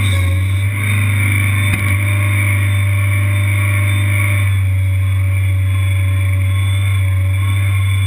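Kanga Kid tracked mini skid steer's engine running steadily and loudly, heard up close from on the machine, with a short knock about two seconds in.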